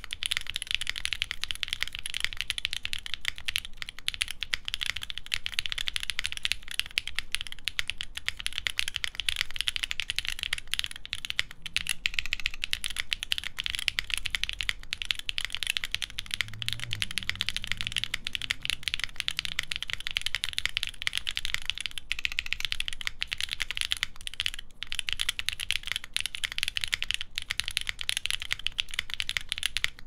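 Continuous fast typing on a Portal mechanical keyboard with Krytox 205g0-lubed Zakus switches on a full FR4 plate and GMK keycaps: a dense, unbroken stream of key clacks.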